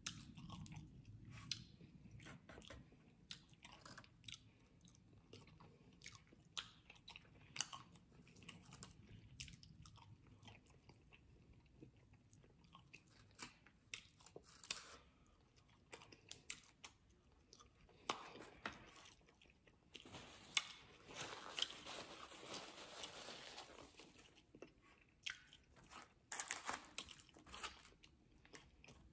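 Close-up eating sounds of fried chicken wings: biting, chewing and wet mouth clicks, with crunching. About twenty seconds in comes a few seconds of denser crackly noise.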